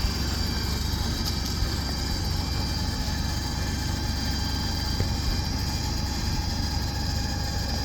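Small-block Chevy 350 V8 of a 1985 GMC 3500 dump truck idling steadily.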